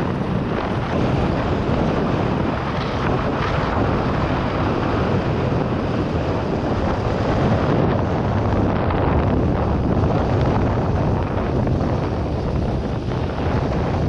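Supermoto motorcycle engine running under way on a country road, mixed with heavy wind noise on the helmet-mounted microphone.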